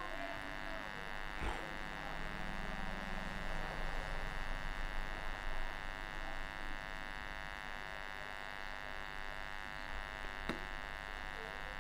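Steady electrical buzz with many overtones, a constant background noise, with two faint clicks, one about a second and a half in and one near the end.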